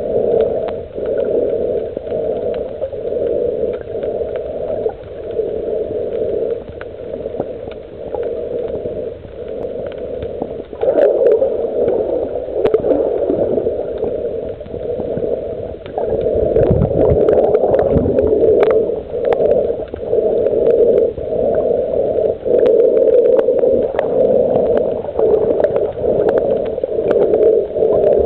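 Muffled underwater noise recorded with the camera submerged: a steady churning hum that pulses every second or two, with scattered faint clicks and a deeper rumble about two thirds of the way through.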